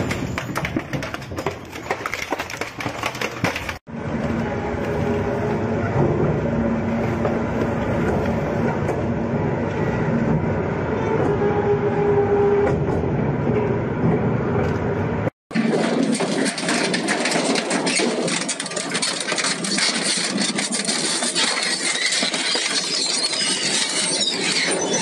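Industrial shredding machinery running and grinding material, in three separate clips joined by abrupt cuts about four and fifteen seconds in. The last clip is a dense crackling.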